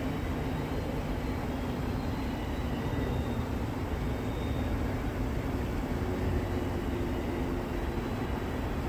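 Double-stack intermodal freight cars rolling past at a distance: a steady rumble of steel wheels on rail, with faint higher tones above it.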